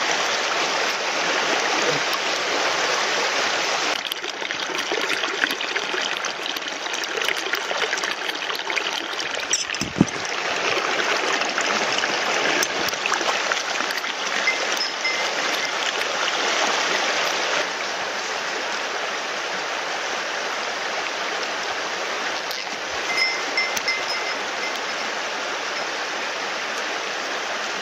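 Shallow rocky mountain stream running over stones, a steady rush of water that eases slightly after about eighteen seconds. A single thump about ten seconds in.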